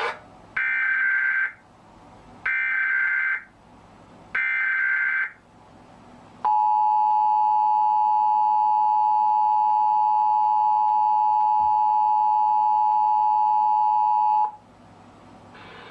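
Emergency Alert System header: three short bursts of warbling data tones about a second apart, then the EAS two-tone attention signal (853 and 960 Hz together) held steady for about eight seconds before cutting off. This sequence marks the start of an EAS alert, here a national test.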